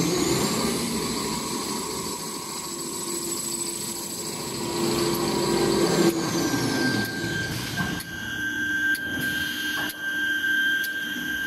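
Toilet tissue and kitchen towel rewinding machine running. A high whine climbs in pitch in the first second, holds steady, then drops away about six to seven seconds in. After that a lower steady tone continues, with a sharp click about once a second.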